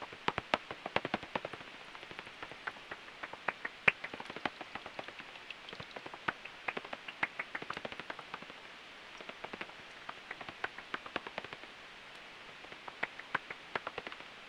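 Pipistrelle bat echolocation calls heard through a heterodyne bat detector tuned to 44 kHz: rapid dry clicks and ticks over a steady hiss. They come in runs with brief lulls between.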